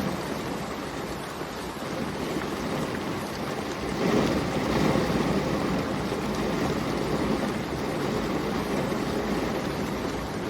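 Steady rain, an even wash of noise that swells a little about four seconds in.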